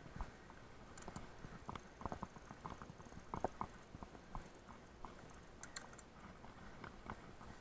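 Mountain bike on a rocky trail: irregular light clicks and knocks from stones and the bike's parts.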